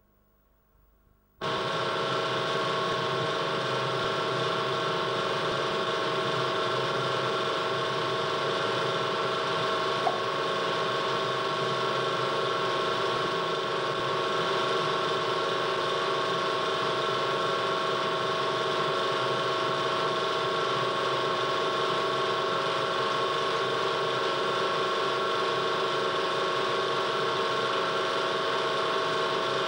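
Steady hum of the electric motor driving a potter's wheel. It starts abruptly about a second and a half in and holds an even pitch throughout, with one small click about ten seconds in.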